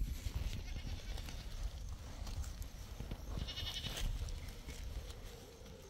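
Goats bleating in the background while earth is scooped out of a small hole by hand and loosened with a metal bar, with scrapes and scattered knocks of soil and stone.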